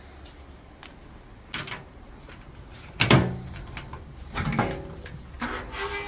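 Metal clunks and knocks as the baler's steel electrical control cabinet is unlatched and its door swung open, the loudest knock about three seconds in, with a short squeak near the end.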